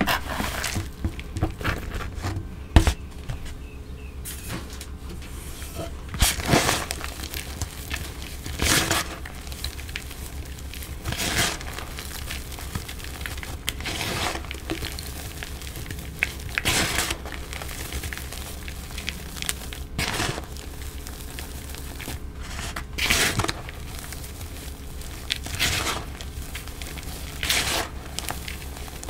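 Hands squeezing and crushing freshly dyed, still-damp gym chalk in a plastic bowl: soft crunches in separate bursts about every two to three seconds as the chunks break down into powder.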